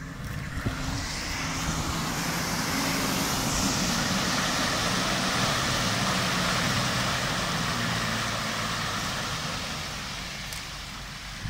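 Off-road SUV driving under power through a muddy water hole, engine working while its tyres churn and splash through mud and water. The sound builds as it comes close, holds, and fades over the last few seconds as it moves away.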